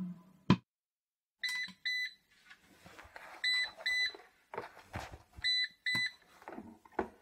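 Philips airfryer's timer-done alarm: three pairs of short high beeps, the pairs about two seconds apart, signalling that the cooking time has run out. A few light knocks of handling sound between them.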